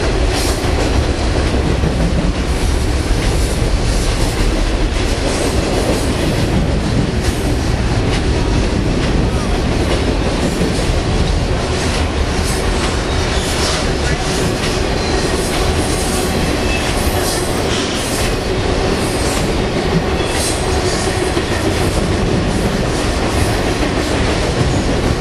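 Double-stack container train's cars rolling past steadily: a loud, continuous rush of steel wheels on rail, broken by scattered clicks and knocks.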